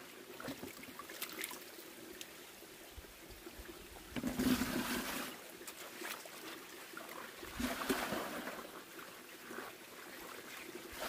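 Shallow stream water trickling, with splashing from hands and a plastic dipper as cabbage leaves are rinsed and water is scooped into a bucket. The splashing is louder twice, about four and about eight seconds in.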